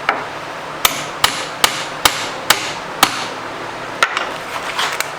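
Hammer blows on the rusted, seized tailstock of a Monarch 10EE lathe, struck to break it loose: about eight sharp strikes, roughly two a second, with a short pause after about three seconds.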